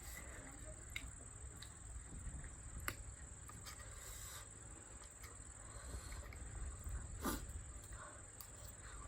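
Quiet eating sounds: chewing, with scattered small clicks, a few sharper ones about three and seven seconds in, over a steady faint high-pitched whine.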